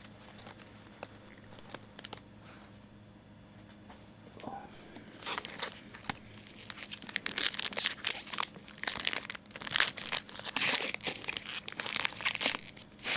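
Faint handling ticks, then from about five seconds in a long run of crinkling and tearing, like a trading-card pack's foil wrapper being torn open and crumpled.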